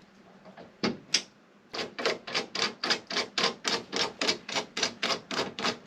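Threaded-rivet (rivet nut) setting tool being cranked down, clicking in an even ratcheting rhythm of about four clicks a second after two single clicks, as the threaded rivet is compressed into the hole in the metal.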